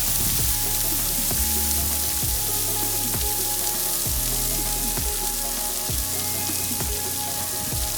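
Waterfall rushing: a steady, even hiss of falling water, with soft background music over it.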